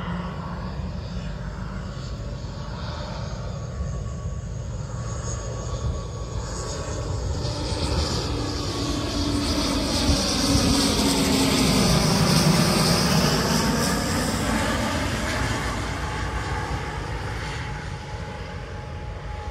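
Airliner on its landing approach flying over, its engine noise growing louder to a peak about twelve seconds in, then fading as it moves away.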